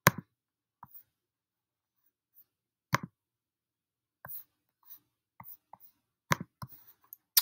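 Computer clicks picked up close to the microphone: four loud, sharp clicks a few seconds apart, with fainter taps and rustles between them.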